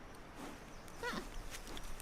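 Giant panda giving a short, faint bleating call that falls in pitch about a second in, among fainter calls.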